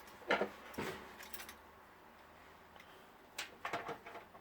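Brief knocks and clinks of loose fittings and parts being handled while a hob is fitted, in a cluster near the start and another about three seconds in.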